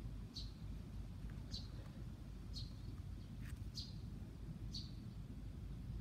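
Short high chirps repeating about once a second, six in all, over a steady low rumble, with one brief click about halfway through.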